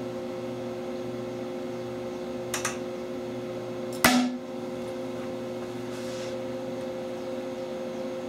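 Hydroxy (HHO) gas alone, without extra air, ignited inside a closed plastic tube: a single sharp pop about four seconds in that drives the test piston out. A pair of faint clicks comes shortly before it, over a steady electrical hum.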